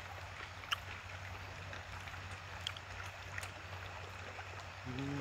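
A steady outdoor hiss with a few faint, short clicks of chopsticks against plastic food trays during eating. Near the end comes a brief hummed 'mm' from a voice.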